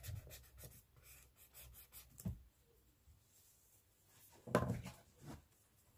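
Pencil strokes scratching on paper, quick and repeated for the first two seconds. A short knock follows a little after two seconds, then a louder thump about four and a half seconds in.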